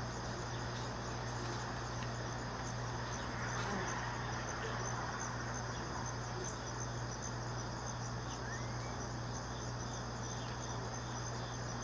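Steady chorus of crickets and other insects, with an even low hum beneath it.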